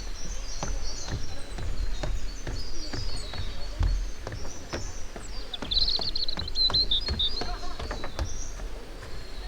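A runner's footsteps striking the ground about three times a second, with a low rumble beneath them. Small birds chirp high above throughout, and one sings a quick trill about six seconds in.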